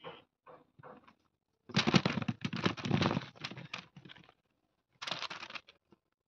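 Silver berries tipped out of a stainless steel colander onto newspaper, tumbling and rattling against the metal and the paper in a dense run of small knocks lasting about two and a half seconds. A shorter clatter follows about five seconds in as the last berries are shaken out.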